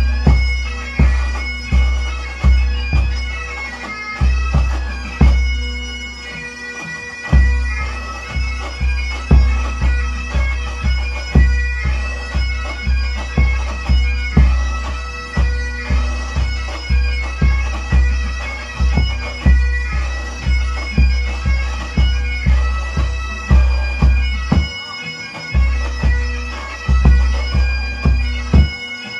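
Scottish pipe band bass drum struck with felt-headed flourishing mallets, a deep boom about one and a half times a second, played in time with bagpipe music. The strokes break off briefly twice, about seven seconds in and near the end, while the bagpipe tune carries on.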